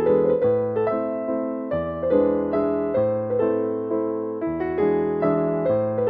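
Calm background piano music: notes struck and left to fade over low bass notes that change every second or two.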